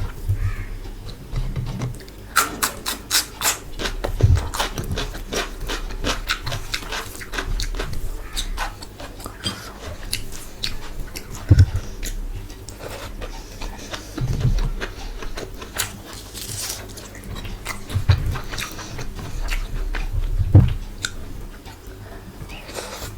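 Close-miked eating: chewing and biting, with quick runs of sharp clicks and now and then a low thump.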